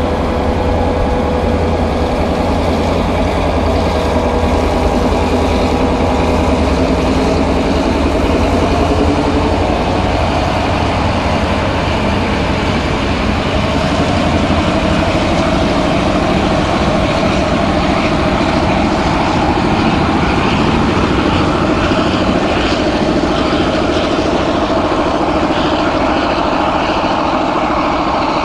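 A NOHAB MY diesel-electric locomotive's two-stroke V16 engine running hard as it hauls a train of passenger carriages past and away, over the steady rumble of the carriages on the rails. The engine note rises slowly in the first half.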